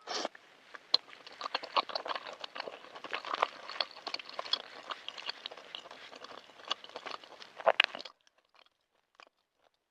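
Close-miked mouth sounds of someone chewing balut (boiled fertilized duck egg): a dense run of small clicks and crackles for about eight seconds, then it stops.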